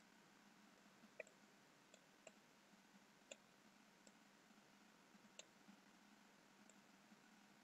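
Faint computer mouse button clicks: about seven irregular single clicks, the loudest about a second in, over near-silent room tone.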